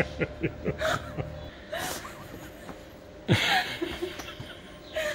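People laughing: a run of quick chuckles in the first second, then a louder laugh a little over three seconds in.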